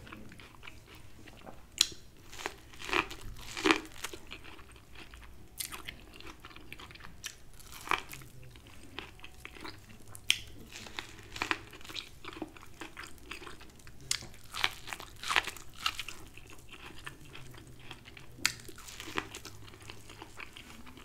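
Someone bites into corn on the cob and chews, the kernels crunching off the cob in short, irregular snaps.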